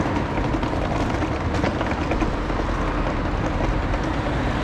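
Steady city traffic noise of road vehicles running past.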